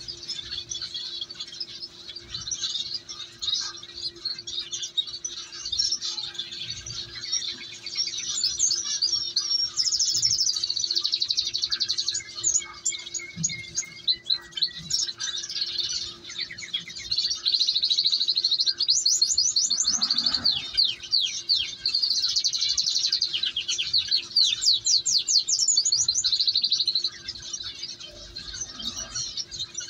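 Canary nestlings begging for food with rapid, high-pitched cheeping while being hand-fed from a syringe, the calls coming in quick runs with a few short lulls, over a faint steady hum.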